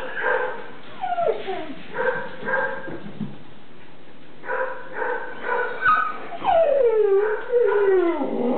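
Young American Staffordshire terrier puppy whining: a few short whines, a pause of a second or so, then a run of whines that grow longer, with several sliding down in pitch near the end.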